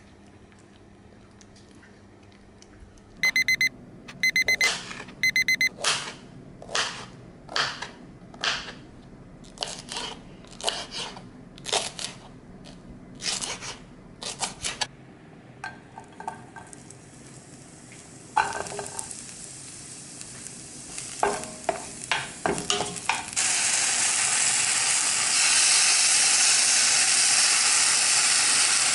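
A kitchen knife chopping green onions on a wooden cutting board, separate strokes about one and a half a second. About two-thirds of the way in, green onion, garlic and kimchi sizzle loudly in oil in a frying pan.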